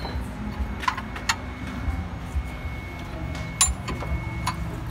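A few separate sharp metallic clicks and taps of a wrench and injector fittings against the diesel engine, over a low steady workshop background.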